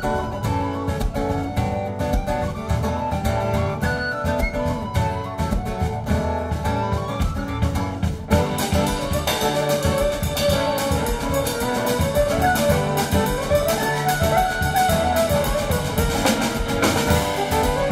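Live band playing an instrumental passage on acoustic guitar, keyboard, drum kit and violin. About eight seconds in the music gets fuller, and the violin carries a melody that glides up and down over the band.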